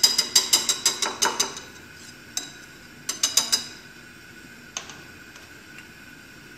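Wire whisk beating crêpe batter in a glass bowl, clinking against the glass in quick strokes, about seven a second, for a second and a half. A single clink follows, then a short run of four or five sharp taps about three seconds in.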